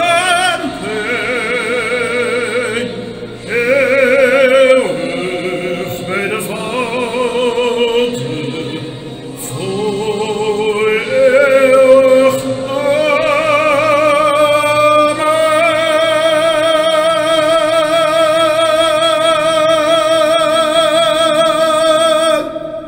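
A man singing a Dutch Christian song over accompanying music, with a wide vibrato. He sings a few short phrases, then holds one long final note for about nine seconds, which stops just before the end.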